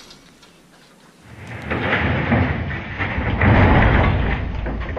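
A heavy lathe sliding and tipping off the back of a trailer onto the ground: a rising rumble of metal grinding and scraping that builds about a second and a half in and is loudest near the end.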